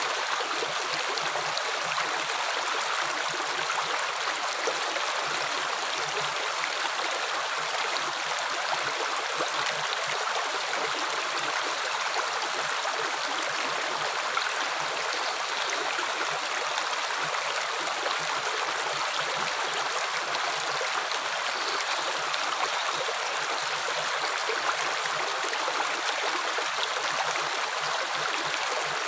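Running water flowing and splashing in a steady, unbroken rush.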